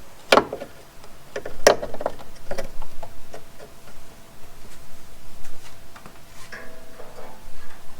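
Irregular sharp clicks and taps of hand tools and metal parts being handled during wiring work, some with a brief metallic ring; the loudest come in the first two seconds, then sparser, lighter ones.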